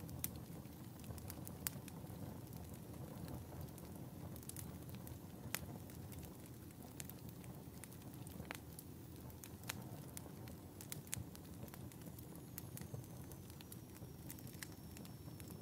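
Wood fire burning in a fireplace: a steady low rumble of flames with sharp, irregular crackles and pops. A faint high whistle slowly falls in pitch near the end.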